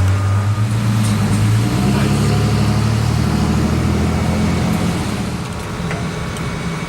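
A motor vehicle's engine running with a low, steady hum that fades about five seconds in, over street traffic noise.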